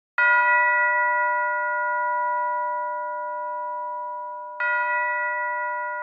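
Church bell struck twice, about four seconds apart, each strike ringing on with several steady tones that fade slowly.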